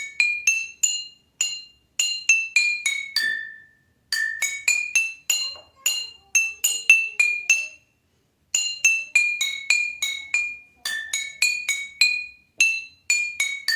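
Glass jars filled with different amounts of water, struck one after another to play a simple tune. The notes ring clear and change pitch from jar to jar, in phrases broken by a few short pauses.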